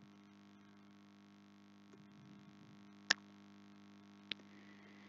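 Faint steady electrical hum from the recording setup, with two short sharp clicks about a second apart near the end.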